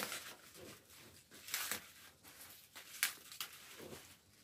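Rustling and crinkling as bunches of leafy greens and a plastic sack are handled, with three louder crisp rustles about a second and a half apart.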